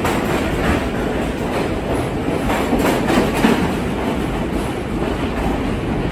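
An R46 subway train pulling out of an underground station, its wheels clacking over the rail joints in a steady rumble as the last car passes and the train moves off down the tunnel.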